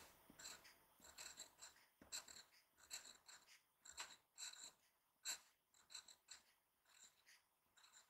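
Glass dip pen nib scratching faintly on paper in many short handwriting strokes.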